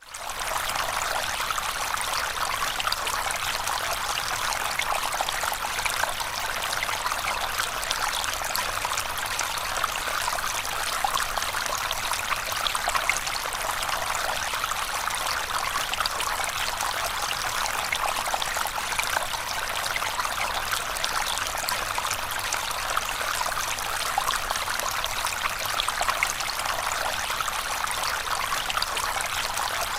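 Running water flowing steadily: an even, hissing rush with fine splashing detail, fading in at the very start and holding level throughout.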